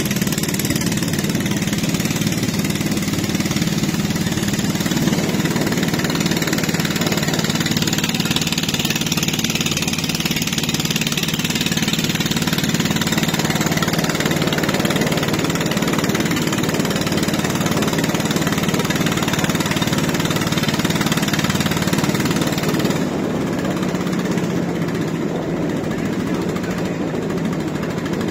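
Boat engine running steadily while under way on the river, a constant drone with a hiss of water and wind over it. About three quarters of the way through it becomes a little quieter and duller.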